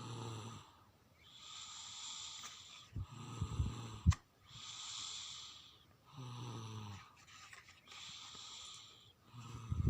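A sleeping person snoring: a low rattling snore alternates with a hissing breath, about every three seconds. There is a sharp click a little after four seconds in.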